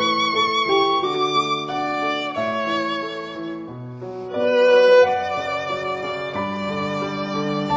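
Background music: a violin melody with vibrato over sustained accompanying chords.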